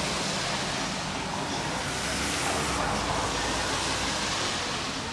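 Steady hiss of traffic on a wet street: tyres on wet road, swelling a little and easing.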